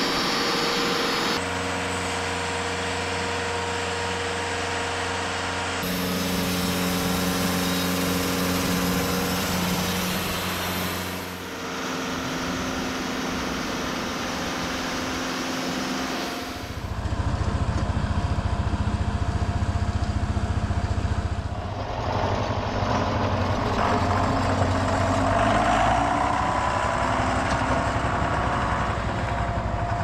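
Machinery running in edited-together clips, the sound changing abruptly every few seconds: a sawmill's engine and blade running, then from about 17 seconds in a louder, lower note from a John Deere tractor's diesel engine running.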